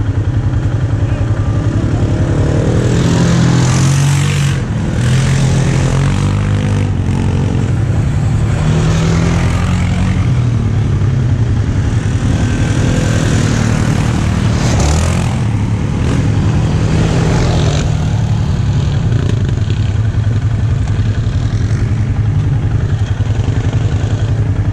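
ATV engine idling close by. Other ATV engines rev, rising and falling in pitch, mostly between about 3 and 18 seconds in.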